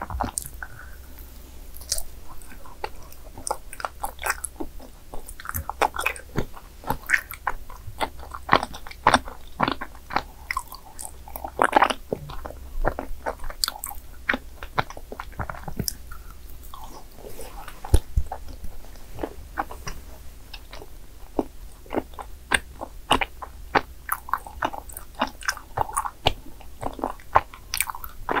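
Close-miked biting and chewing of chewy cream-filled rice cakes, with many irregular short wet clicks and mouth sounds. The cakes are still partly frozen.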